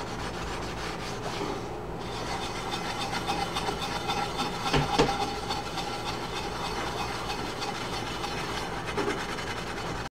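Steel wool scrubbing the inside of a wet, soapy cast-iron skillet: a steady rasping rub as old residue is scoured off before seasoning. A couple of brief knocks come about halfway through.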